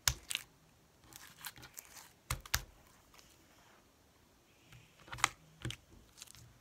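Sticky purple slime with beads mixed in, stretched and squeezed by hand: a scattering of wet clicks and crackling pops. The loudest come right at the start, about two and a half seconds in, and a little after five seconds.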